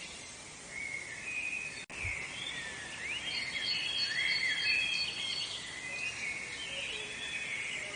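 Several wild birds chirping and warbling in woodland, their songs overlapping in short rising and falling phrases over a faint steady background hiss. The sound cuts out for an instant about two seconds in.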